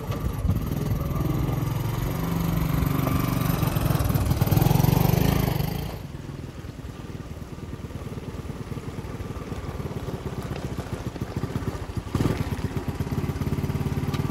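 Honda ATC 200 three-wheeler's single-cylinder four-stroke engine running, getting louder over the first five seconds. After a cut about six seconds in it runs more quietly as the machine rides along a trail, then louder again about twelve seconds in as it comes close.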